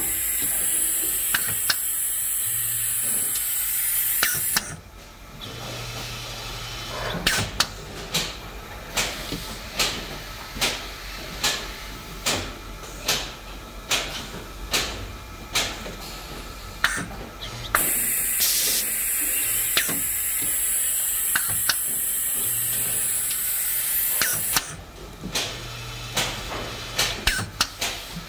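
Compressed-air hiss from the vacuum pick-up of a pneumatic barcode-label applicator. The hiss cuts off about four and a half seconds in and comes back for about seven seconds past the middle. In the gaps a machine ticks steadily, about three ticks every two seconds.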